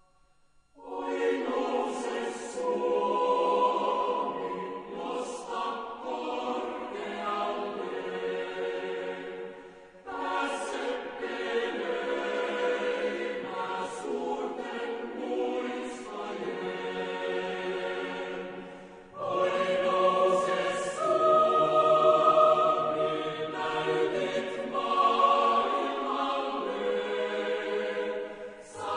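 Choral music: a choir singing long held chords in slow phrases, a new phrase beginning about every nine seconds.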